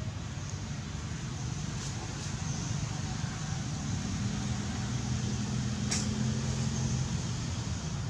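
Low steady rumble with a motor's hum that grows louder about four seconds in and eases off near the end; a single sharp click about six seconds in.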